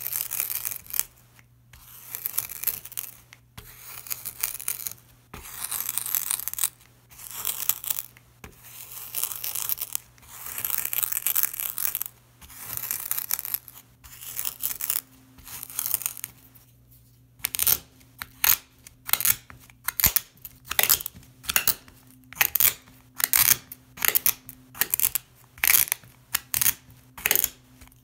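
Packed sand crunching as a rod presses down into a mound of it on a mirror: long grinding crunches every second or two, then, about two-thirds of the way in, short quick crunches about two a second.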